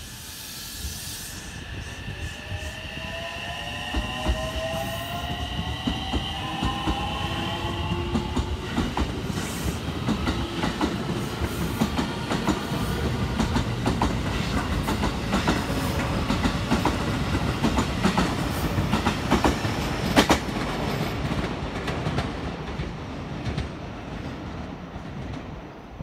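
JR West 225 series and 223 series 2000 electric trains pulling away from the station. Their inverter-driven traction motors whine in several tones that rise in pitch over the first ten seconds or so as the train accelerates. The wheels then clack rapidly over the rail joints as the ten cars go by, and the sound fades near the end.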